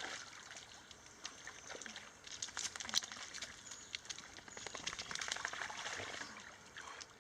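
A dog splashing through shallow river water: many small, irregular splashes over a steady trickle, busiest in the middle of the stretch.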